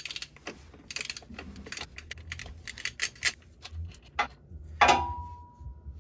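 Metal tools and parts clinking and rattling as the staked nut is worked off the transfer case output flange, in short irregular clicks. About five seconds in comes a sharp metallic clink that keeps ringing afterwards.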